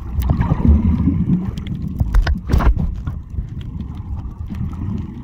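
Muffled underwater sound of a snorkeler moving through the sea: a low rumble of water with scattered sharp clicks, and a louder rushing gush about two and a half seconds in.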